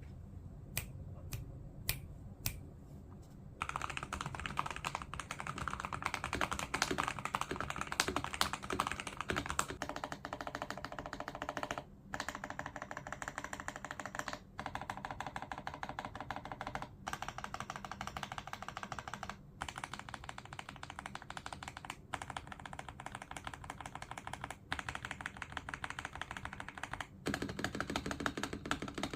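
Typing on a CMK98 mechanical keyboard with Kailh Box Avocado switches: a few single key presses at first, then about four seconds in, fast continuous typing with brief pauses every two or three seconds.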